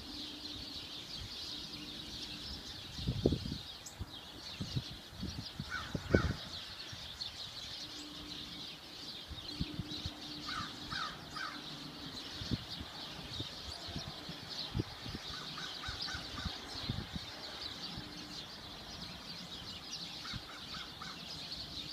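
Short bird calls in groups of two to four quick notes every few seconds, over a steady high hiss. Two loud low thumps come about three and six seconds in.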